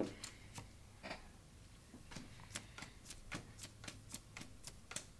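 Pokémon trading cards being slid off a hand-held stack one by one: faint, light clicks, a few in the first second, then a quick run of several a second from about two seconds in.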